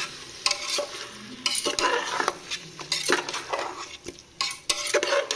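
A metal spoon stirring chicken and curd masala in an aluminium pressure cooker, scraping and clinking against the pot at irregular moments, with the food sizzling under it.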